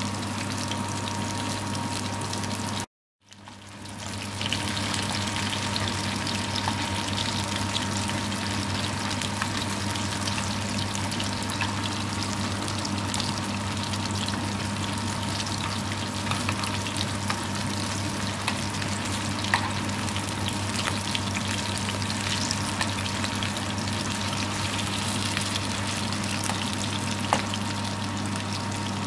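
Spiced minced-meat kebabs shallow-frying in hot oil in a pan, a steady sizzle with a low hum underneath. The sound cuts out completely for a moment about three seconds in, then rises back.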